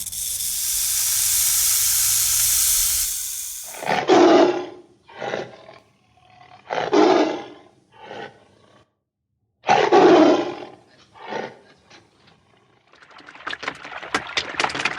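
A steady hiss that stops about three and a half seconds in, then a big cat roaring: three deep roars about three seconds apart, each followed by a shorter grunt, and a run of short grunts trailing off. A crackling noise comes in near the end.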